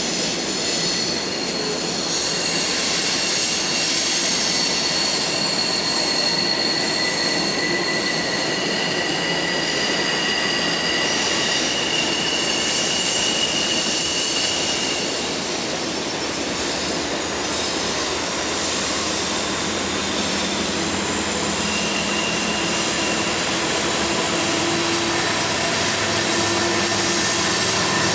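Freight train cars rolling past with steady rolling noise and wheels squealing in a few high, steady tones that come and go. Near the end a diesel locomotive's engine running comes in underneath.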